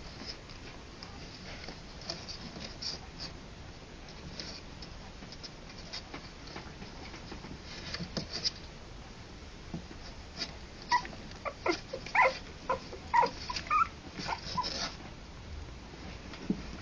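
Three-week-old harlequin poodle puppies whimpering and squeaking in a run of short, high calls, bunched in the second half.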